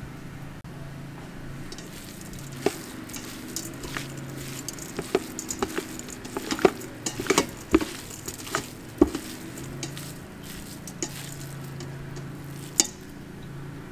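Hand mixing seasoned shaved raw beef in a stainless-steel Instant Pot insert: wet squishing with sharp clicks against the metal pot, busiest in the middle, over a steady low hum.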